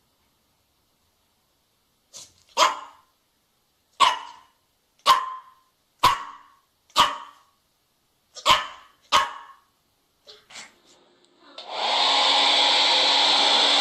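A dog barks about ten times in short sharp barks, roughly a second apart, the last few fainter. Near the end a hair dryer switches on and runs steadily.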